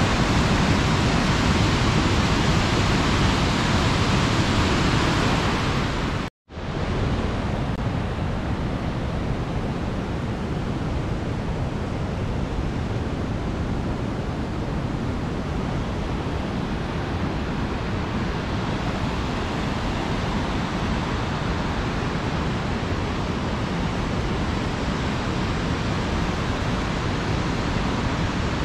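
Steady rush of a large waterfall, Linville Falls, heard close. It cuts out abruptly for a moment about six seconds in, then carries on a little softer and less bright.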